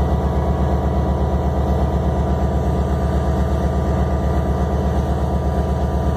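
Diesel-electric locomotive engine idling steadily, with a deep, even rumble that pulses quickly and does not change.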